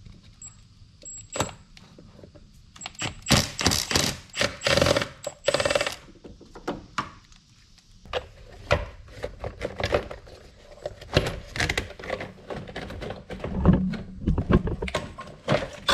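A cordless power tool runs in a few short bursts about three seconds in, backing out the bolts that hold the air filter housing. After that comes a string of sharp knocks and rattles as the plastic air box is worked loose and lifted out.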